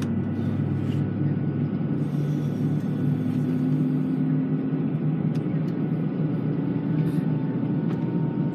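Steady low hum and rumble of an Airbus A320's cabin on the ground before take-off, with a few faint constant tones over it.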